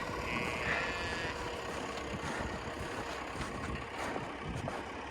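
Farm tractor engine idling steadily, with a sheep bleating once for about a second near the start.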